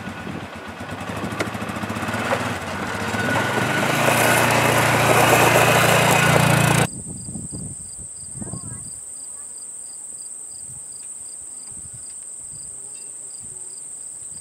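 Polaris Ranger utility vehicle's engine running, growing louder for about seven seconds and then cut off suddenly. After it, insects, likely crickets, make a steady high-pitched drone with a fainter regular pulsing chirp beneath it.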